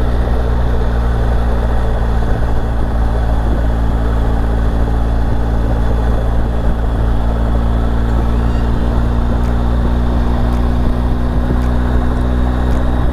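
Motorcycle engine running at a steady speed while riding, an even hum with a constant rushing noise over it.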